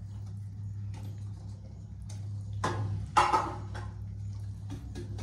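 A steel spoon stirring and scraping a flour mixture in a stainless steel bowl, with a short loud clatter of metal on metal about three seconds in, over a steady low hum.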